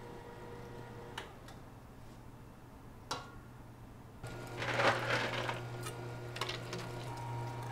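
Steady electric motor hum, likely kitchen machinery, with two sharp clicks; about four seconds in the hum grows louder and a brief burst of clattering follows.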